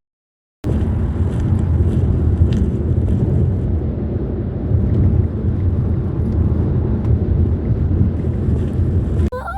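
Steady low rumble of a moving car heard from inside the cabin: road and engine noise. It starts abruptly after under a second of dead silence.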